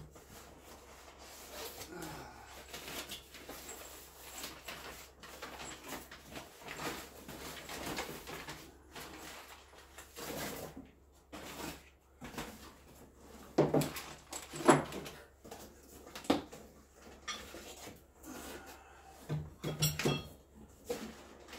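Rustling of plastic and paper packing wrap and cardboard boxes being handled, with a few louder knocks and clunks around the middle and again near the end.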